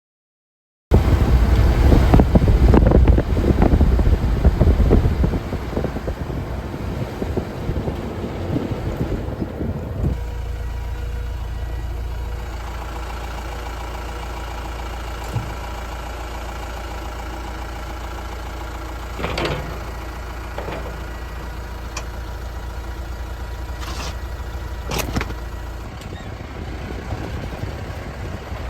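An engine running with a steady low hum, starting about a second in with a loud, rough rumble that settles after a few seconds, with a few sharp clicks later on.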